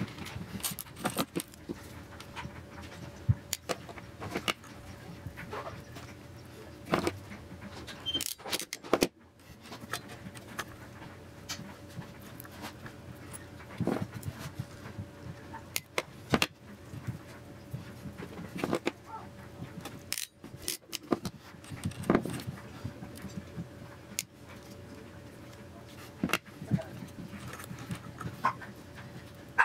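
Scattered small clicks and rustles of hands working thin wires, wire strippers and a crimping tool while putting crimp pins onto power-supply wires, over a faint steady hum.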